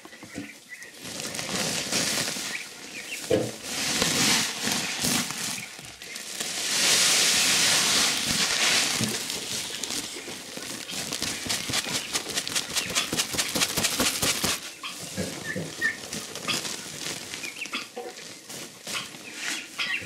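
Plastic feed sack rustling and pellets of compound feed pouring into a galvanized metal tub. There is a steady rush about seven seconds in, then a fast patter of pellets for several seconds. Big-6 turkey poults peep now and then.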